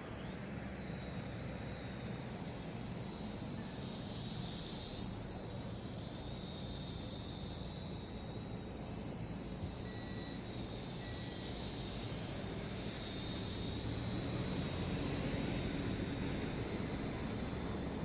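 BeeBeeRun K200C toy quadcopter's motors and propellers whining in flight, the pitch wavering up and down with throttle and getting louder toward the end.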